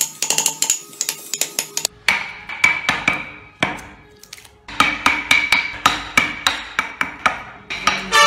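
A wood chisel being struck to cut into a solid block of wood: a quick, irregular run of sharp knocks, several a second, easing off for about a second around halfway through before picking up again.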